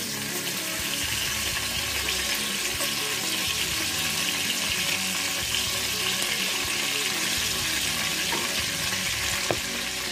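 Whole spices (cardamom, cloves, cinnamon, bay leaves and fenugreek) sizzling steadily in hot oil in an aluminium pot, frying to release their aroma.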